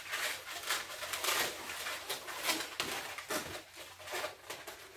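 Latex modelling balloons squeaking and rubbing in the hands as they are twisted into bubbles and pinch twists, in an irregular run of short squeaks.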